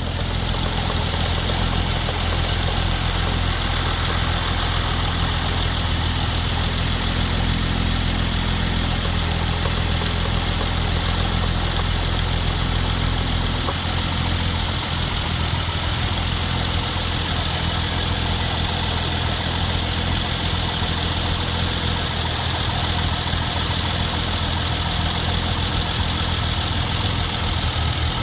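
Hyundai Genesis Coupe's 3.8-litre V6 idling steadily just after starting. Its lowest hum shifts about halfway through.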